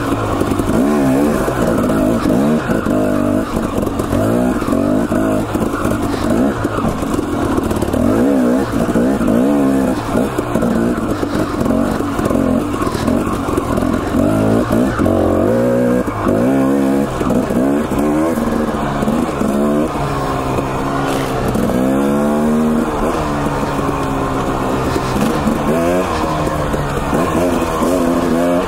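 Husqvarna TE250 two-stroke dirt bike engine revving up and down as the rider works the throttle, its pitch rising and falling every second or two.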